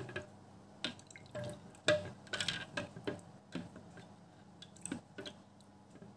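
Water dripping and splashing in a plastic jug as the plunger basket of a StylPro squeeze blender cleanser is worked in the water, with light plastic knocks. The drips and knocks come irregularly, a dozen or so, with short quiet gaps between.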